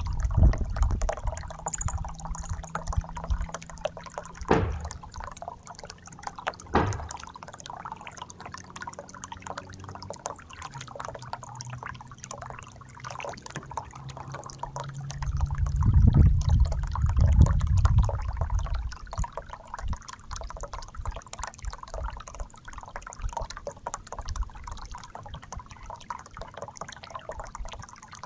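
Small fountain jet in a bird bath, water splashing and trickling steadily into the basin, with a dark-eyed junco bathing in it. A few sharp ticks early on and a louder low rumble about two thirds of the way through.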